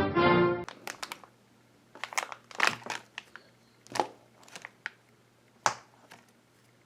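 Packaging crinkling and crackling in short scattered bursts as blind-bag packets are handled; a music sting cuts off in the first second.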